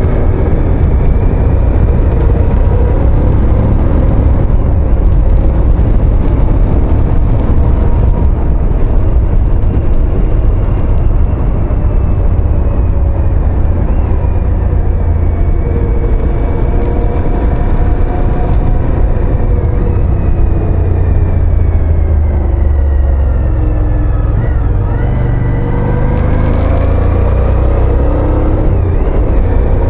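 Motorcycle engine running steadily while riding, under heavy wind rumble on the bike-mounted camera's microphone. The engine note drifts slowly with speed and dips and rises again near the end.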